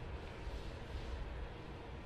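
Steady low rumble with an even hiss of outdoor street noise, with no distinct events.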